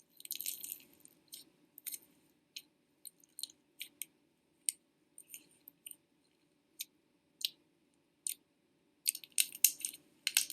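Slime being poked and squeezed by hand: scattered sticky clicks and crackles, coming thick at the start and again in a quick run near the end.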